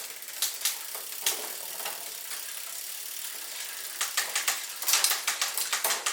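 Downhill mountain bike's newly fitted drivetrain being run by hand: chain running over the large cassette and through the long-cage rear derailleur, with the freehub ratcheting. Sharp clicks come in the first second and again in a quick run from about four seconds in, around a steadier whir, as the newly indexed gears are checked.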